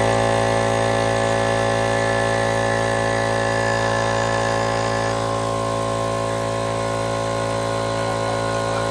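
Portable electric air compressor running steadily, its motor and pump building tank pressure for air tools: an even, unchanging mechanical drone.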